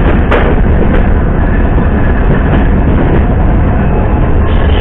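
Passenger train running, heard from aboard: a loud, steady rumble of wheels on rails, with a sharp click about a third of a second in.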